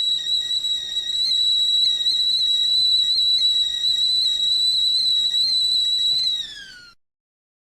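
Stovetop whistling kettle at the boil, a steady high-pitched whistle that, about six seconds in, drops in pitch and dies away.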